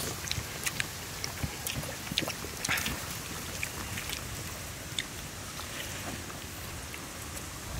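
Eating rice by hand from banana leaves: scattered light clicks and rustles of fingers scooping rice against the leaf, over a steady low hiss.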